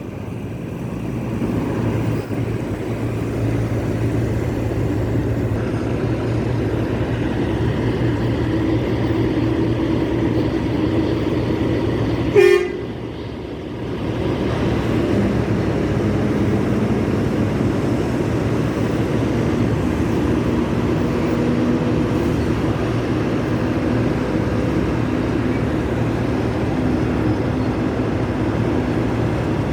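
Semi trucks' engines running steadily, with one short, loud truck horn toot about twelve seconds in.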